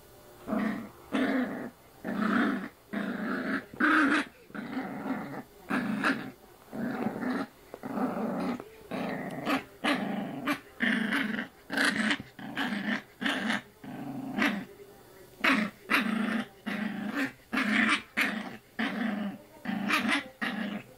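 Puppy growling in short, repeated bursts, about one and a half a second, the play-growl of a pup mouthing and play-biting at a person's arm.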